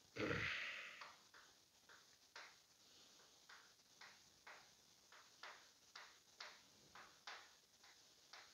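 Felt-tip marker writing on a board: a string of short scratchy strokes, roughly two a second. A louder, dull thump-and-rustle comes just after the start.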